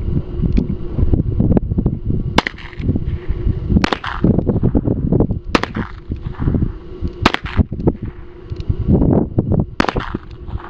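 Smith & Wesson K-22 Outdoorsman revolver firing .22 LR: five shots, each a sudden sharp crack, spaced about one and a half to two and a half seconds apart. Wind rumbles on the microphone between the shots.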